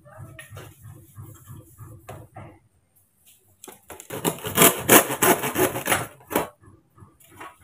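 Handsaw and green bamboo poles being worked on a wooden bench: light knocks and scraping for the first couple of seconds, then a louder stretch of fast rasping strokes from about four to six and a half seconds in.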